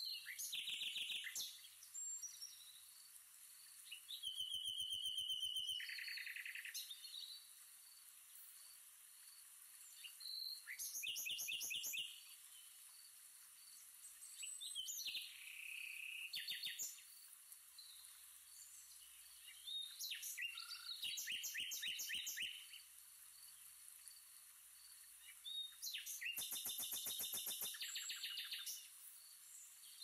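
Birds chirping in repeated bursts of rapid notes, each lasting a second or two and coming about every five seconds, over a steady outdoor hiss.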